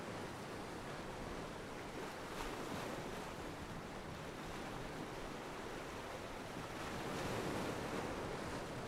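Ocean water washing and lapping around a pier, a steady wash that swells briefly about two and a half seconds in and again near the end.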